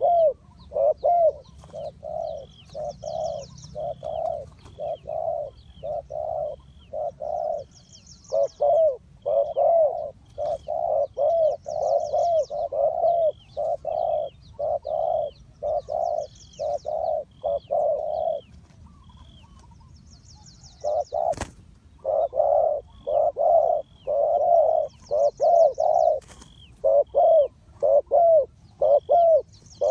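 Spotted doves cooing in fast runs of low coos, about two a second, with a pause of a few seconds past the middle. A single sharp click follows the pause, and thin high chirps from another bird repeat in the background.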